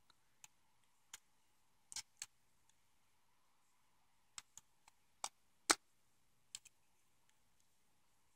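Faint, scattered clicks and taps of a knife blade working against the plastic housing of a GM E38 PCM harness connector as its lock tabs are pried at, about a dozen in irregular spacing, the sharpest about five and a half seconds in.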